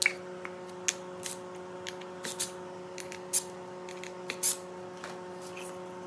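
Scattered sharp clicks and light knocks from hands handling a small spray-painted plywood plate, about ten in all, the loudest and longest about four and a half seconds in, over a steady low hum.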